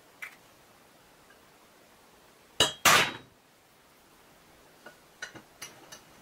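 Metal on metal in a workshop: two loud sharp clanks with a brief ringing note, from the steel square tube being handled and set into a bench vise, then a few light metallic clicks near the end as the vise's sliding handle is turned to clamp it.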